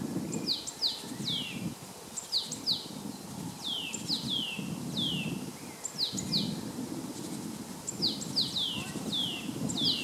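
Great tit singing: repeated two-note phrases, a brief very high note followed by a falling whistle, given in runs of two or three with short pauses between. A low, uneven rumble lies beneath.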